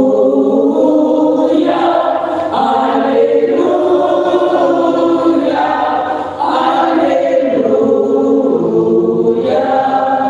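Church choir and congregation singing together in long held notes, phrase by phrase, with a brief break about six seconds in. This is the sung acclamation before the Gospel reading.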